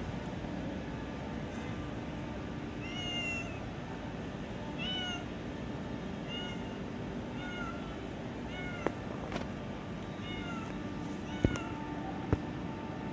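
Domestic cat meowing repeatedly: about seven short meows spaced a second or two apart. Three sharp clicks in the last few seconds are the loudest sounds, over a steady background hum.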